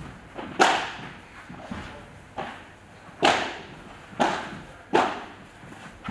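Padel rally: the ball struck back and forth by solid padel rackets, each hit a sharp pop with a short echo off the hall. There are about six hits roughly a second apart; the loudest come about half a second in and in the middle stretch.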